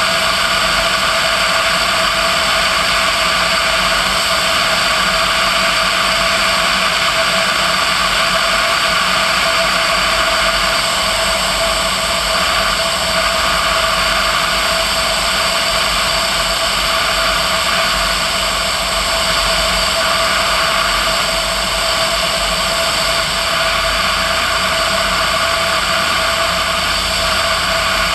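Socata TB10 Tobago light aircraft in flight: the engine and propeller drone steadily under a strong rush of airflow, as picked up by a camera mounted in the wingtip.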